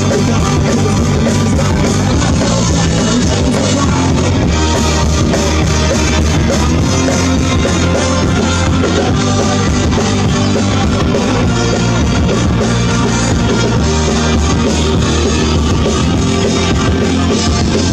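Rock band playing live at full volume through outdoor PA speakers, with steady, continuous amplified music.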